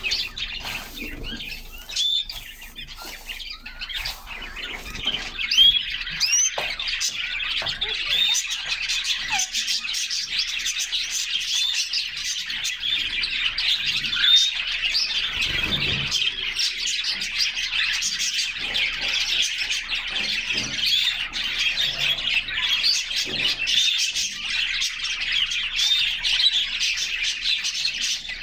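Pet canaries in a cage chirping and singing, with many quick chirps and trills overlapping throughout, and occasional soft clicks and thuds.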